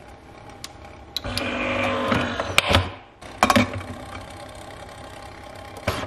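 Nespresso Vertuo Plus capsule machine being loaded by hand: plastic clicks and knocks as a capsule is set into the holder, a short mechanical whir about a second and a half in, and a click near the end as the head is pressed shut.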